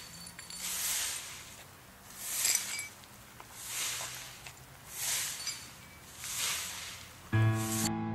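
Five swishing rushes of hiss, about a second and a half apart. Music starts suddenly near the end.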